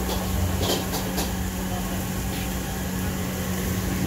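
Steady mechanical hum with a low drone and an even hiss at a smoking charcoal skewer grill. There are a few light clicks about a second in, as the chicken skewers are handled.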